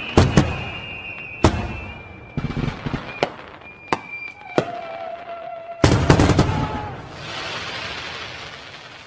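Fireworks going off: repeated sharp bangs of bursting shells, with whistling tones early on and a dense cluster of bangs about six seconds in, followed by a crackling hiss of falling sparks.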